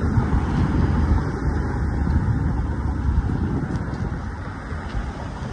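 Wind buffeting the microphone: an uneven low rumble with no steady tone.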